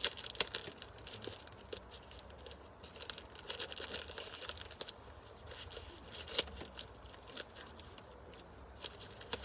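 Parcel packaging being torn and crinkled open by hand, in irregular crackles and rustles, with a sharper snap about half a second in.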